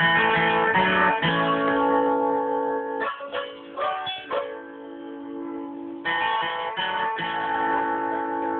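Music of strummed, plucked strings, guitar-like, with held chords changing every second or two.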